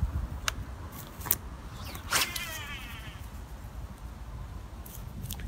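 A cast with a baitcasting reel: a couple of sharp clicks, then about two seconds in the swish of the rod and the reel's spool whirring for under a second as the line pays out, and a few faint clicks near the end. The reel is newly bought and not yet tuned to its best.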